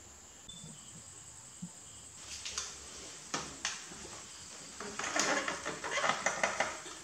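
A rabbit eating soft soursop flesh from a plastic bowl: short wet chewing and nibbling clicks. They start about two seconds in, with two sharper clicks, and come in a quick dense run near the end.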